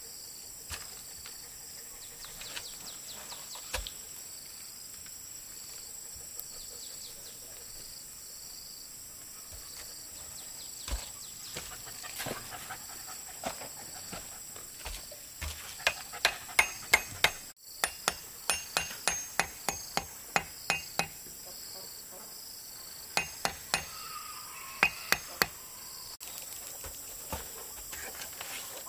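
Hammering, most likely on wood: scattered single blows at first, then quick runs of sharp strikes, about two a second, through most of the second half, and a few more near the end.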